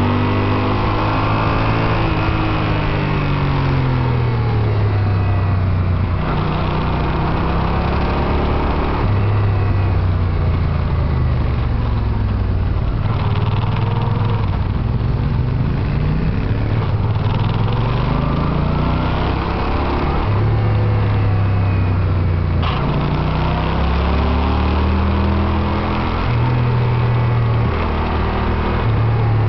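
Yamaha TDM900's parallel-twin engine, heard from on board, revving up and down as the bike is ridden hard around a track. The pitch climbs, drops at each gear change or under braking, then climbs again many times over.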